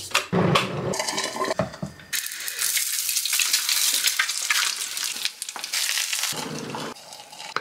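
Eggs and sausages frying in a pan, a steady sizzle lasting about four seconds, after a second or two of clicks and knocks.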